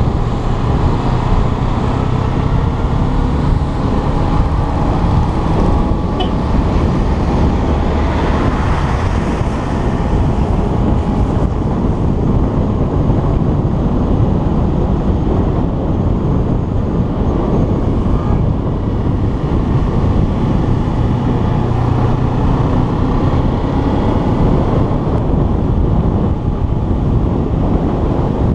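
Motorcycle ridden uphill at a steady pace: its engine runs under a loud rush of wind on the microphone, with tyre noise on the wet road.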